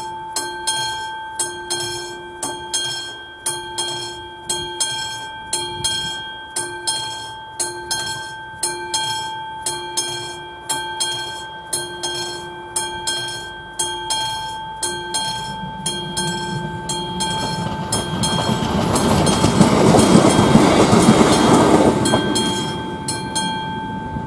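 A level crossing's classic mechanical warning bell ringing in regular repeated strikes, its note hanging on between them. A train comes up and passes over the crossing, loudest about 20 seconds in and then fading. The bell stops near the end as the crossing clears.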